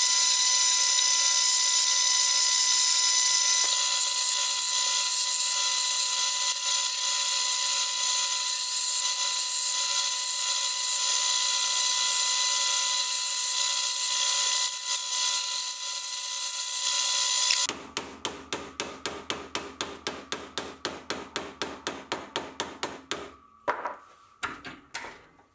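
A metal lathe spinning a wooden tool handle while a hand-held turning chisel cuts it: a steady whine with a hiss of cutting. About eighteen seconds in, this gives way to quick, even taps, about three or four a second, as a chisel's tang is tapped into its new wooden handle, then a few scattered knocks.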